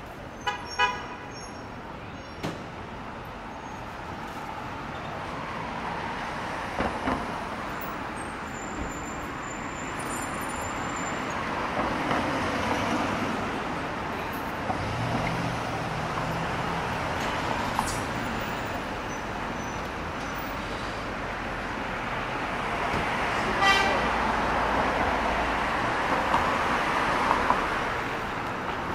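Busy city street traffic: a steady wash of engine and tyre noise, with a car horn honking in the first second and again about three quarters of the way through.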